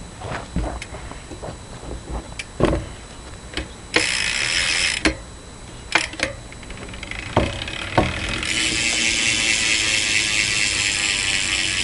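Verde BMX rear hub's freewheel pawls ratcheting as the wheel is spun: a rapid high buzzing for about a second around four seconds in and again from about eight and a half seconds on. Separate clicks and knocks fall between the runs.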